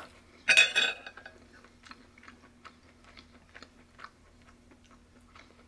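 Close-miked chewing: soft, wet mouth clicks and smacks at an uneven pace, after one brief louder burst about half a second in.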